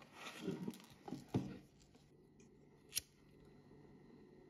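A few knocks and handling sounds on a plastic toolbox early on, then a single sharp click about three seconds in as a BIC disposable lighter is struck and lit.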